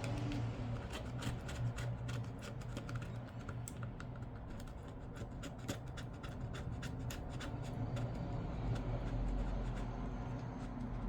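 A small hand tool scratching and clicking against the iPad 2's frame, an irregular run of quick small ticks that thins out in the last few seconds, over a steady low hum.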